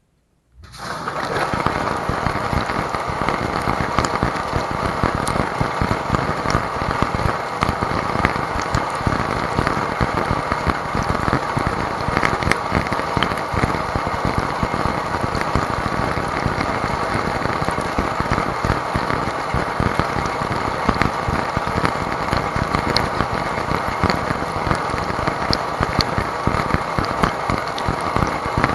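Wash water from a Whirlpool WDT910SSYM0 dishwasher's spray arms pelting a camera sealed in a plastic bag inside the tub, a steady dense spattering like heavy rain. It starts suddenly about half a second in as the spray comes on.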